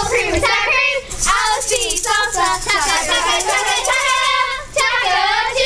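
A group of young girls singing a jingle together, with maracas shaken along. One long held note comes about four seconds in.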